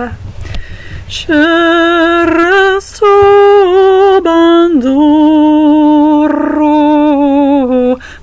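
A single voice singing a Ukrainian song unaccompanied, holding long vowels that step up and down in pitch, with a slide down about five seconds in. The singing is weak for about the first second and breaks off briefly just before the end.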